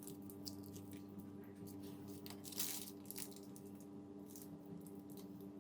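Faint crinkling and squishing of a plastic bag being squeezed by hand as tomato sauce is piped out through a cut corner, with a small louder crackle a little past halfway. A steady low hum runs underneath.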